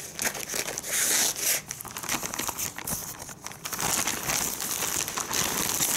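Orange plastic poly mailer bag crinkling as it is cut open with scissors and pulled apart: irregular rustling, crackling bursts.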